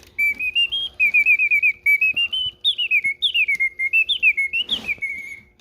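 Karl Griesbaum mechanical singing bird automaton singing through its bellows-blown whistle: phrases of quick trills and pitch glides rising and falling, with short breaks between phrases.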